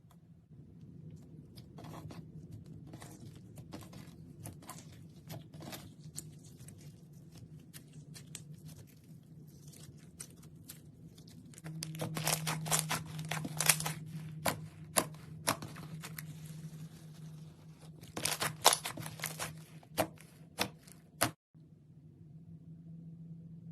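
Slime being squeezed and stretched by hand, giving crackling pops and tearing sounds. The pops come in louder flurries about halfway through and again later, over a steady low hum.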